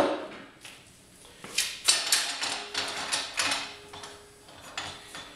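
Clicks and clunks of a manual tire changer's mount bar and a duckbill mount/demount head being handled as the head is swapped. One clunk comes right at the start, then a run of irregular knocks and clicks from about a second and a half to three and a half seconds in.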